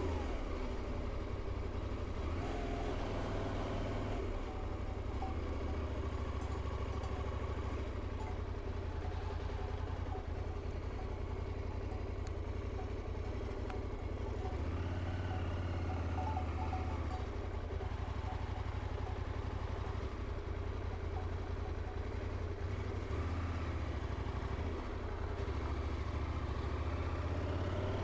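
Motorcycle engine running steadily while riding along a road, with a couple of louder stretches.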